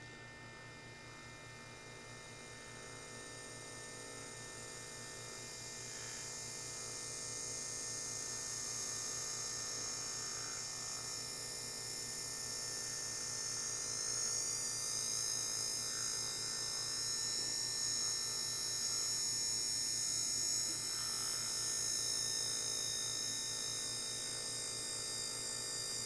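Small permanent-magnet DC motor running at speed with a high-pitched whine. It grows louder over the first several seconds as the motor spins up, and its pitch rises a little about halfway through.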